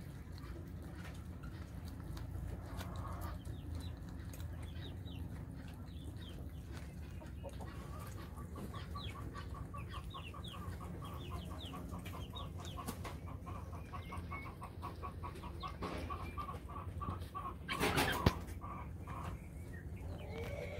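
Farmyard chickens clucking, with a quick, even run of clucks through the middle and high, short falling peeps above it. A short, loud noisy burst comes near the end.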